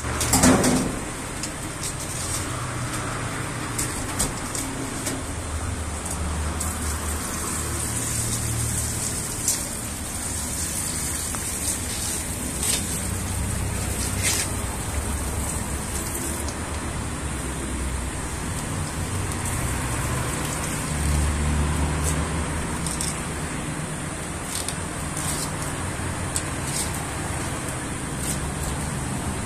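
Steady background rumble of a working fish shop, with scattered clicks and knocks as trout are handled and cut. A louder handling sound comes in the first second, while the fish is being trimmed with shears.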